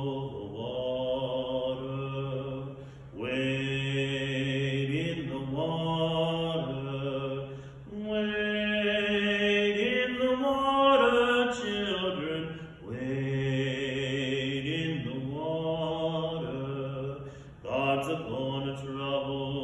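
A man singing solo, in long phrases of four to five seconds with short breaks for breath between them. The phrase in the middle climbs higher and is the loudest.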